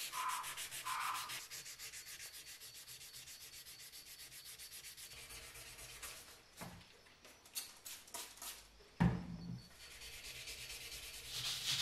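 Steel hammer head being wet-sanded by hand in a vise: sandpaper rasping in quick, even back-and-forth strokes, with a few short squeaks at the start. There are scattered clicks, and a thump about nine seconds in.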